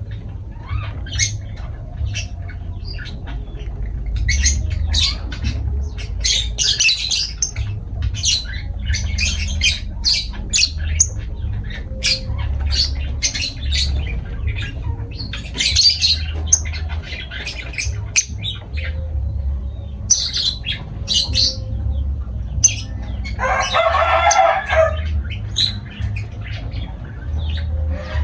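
Lovebirds chattering: many short, shrill chirps and squawks, with one longer, harsher squawk near the end, over a steady low rumble.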